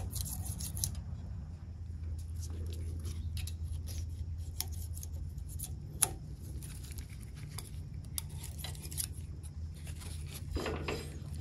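Light metallic clicks and scrapes of a steel feeler gauge being slid into the air gap between the flywheel magnet and the ignition coil of a Kohler Magnum engine, with one sharper click about six seconds in, over a steady low hum.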